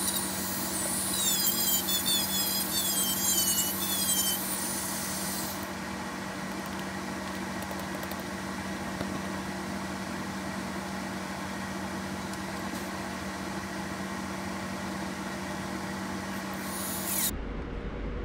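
Corded handheld rotary tool running at a steady speed, its bit squealing with wavering high pitches against the shoe for the first few seconds. The motor sound cuts off abruptly near the end.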